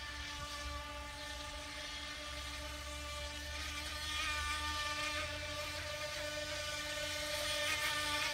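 H102 RC speedboats running flat out across the water, their motors giving a steady whine that grows a little louder about halfway through.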